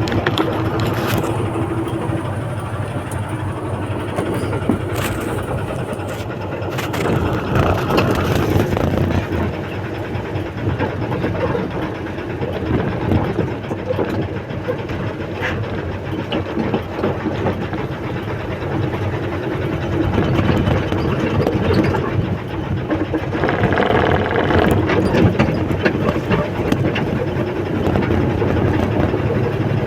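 Backhoe's diesel engine running continuously, swelling louder a few times as it works under load.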